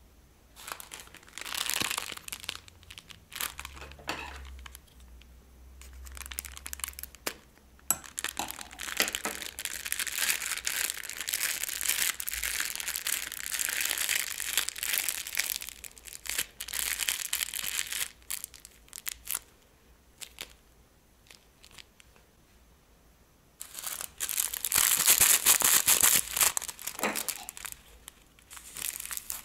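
Plastic piping bags crinkling as they are handled, in rustling bursts: a long stretch of crinkling, a lull of a few seconds, then the loudest burst near the end.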